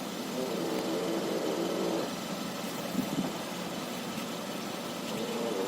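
Front suspension of a 2011 Hyundai Elantra MD creaking twice as the steering wheel is turned to full lock, over the engine idling. The creak comes at the end of the steering travel, and the owner first suspected a worn ball joint.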